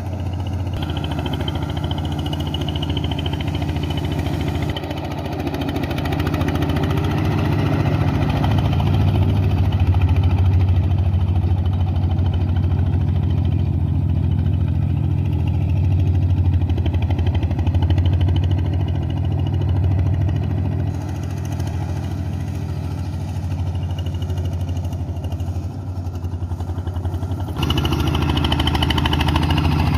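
Engine of a boat-type rice-paddy tractor (traktor perahu) running steadily with a low hum, growing somewhat louder a few times and easing off again.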